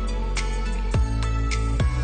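Background music with a steady beat: deep kick-drum hits about once a second and crisp high percussion over sustained bass notes.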